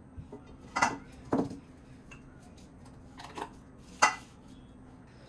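Kitchenware clinking and knocking, a handful of short separate clinks, the sharpest about four seconds in, as the finished spice powder is handled in its bowl.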